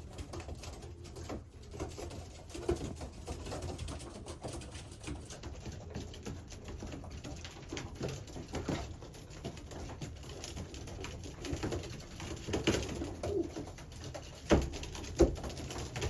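Racing pigeons cooing repeatedly, with two sharp knocks or slaps near the end.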